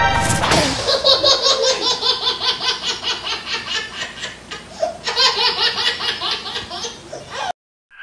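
Cartoon laughter sound effect: a long run of rapid, high-pitched giggling that breaks briefly partway through and cuts off suddenly near the end, opening with a quick swooping tone.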